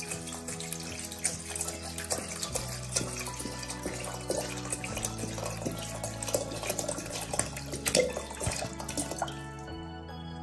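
Water poured from a bottle into an empty stainless steel pot, splashing and gurgling steadily, then tapering off shortly before the end. Soft sustained background music plays underneath.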